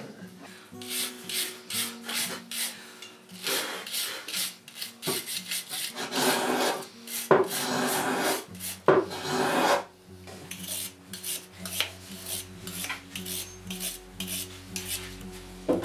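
Rapid back-and-forth hand scrubbing of rusty steel eggbeater-drill parts with a wooden sanding stick, the abrasive rasping in uneven bursts of strokes that grow loudest and most continuous about halfway through.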